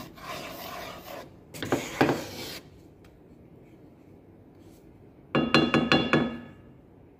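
Wooden spatula scraping and stirring dry flour in a nonstick frying pan as the flour toasts, in rough strokes with a few knocks against the pan during the first two and a half seconds. About five seconds in comes a loud, brief pitched sound that pulses several times a second for about a second.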